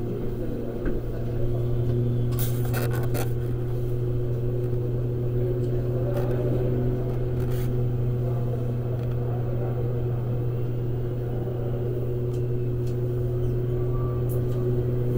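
Steady low hum of building machinery, with a few fixed higher tones over it and a short run of clicks about two and a half seconds in.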